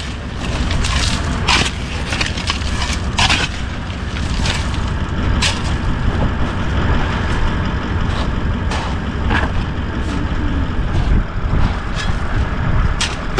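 Shovel scraping and crunching into loose gravel, digging out around a bogged vehicle's tyre: a few quick strokes in the first few seconds, then occasional single ones, over a steady low rumble.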